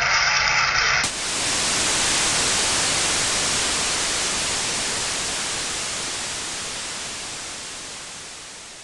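Music cuts off abruptly about a second in, replaced by a steady hiss of static-like noise that slowly fades out.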